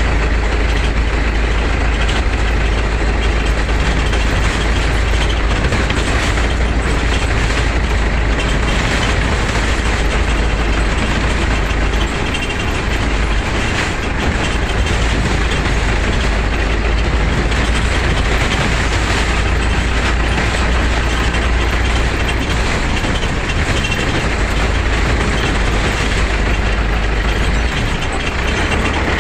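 Local bus driving along an unpaved forest road, heard from inside the driver's cab: the engine runs steadily under a heavy low rumble, mixed with loud road noise.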